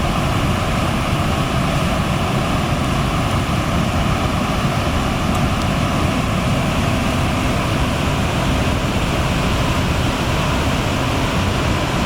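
Floodwater rushing in a steady, unbroken roar of noise.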